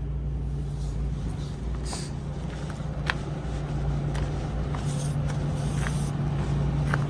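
Semi truck's diesel engine idling with a steady low hum, with a few light clicks over it.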